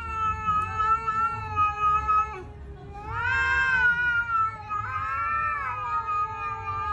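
A cat yowling at another cat in a standoff: three long, drawn-out wails with short breaks between, the middle one rising and then falling in pitch. This is a warning or threat call between two cats facing off.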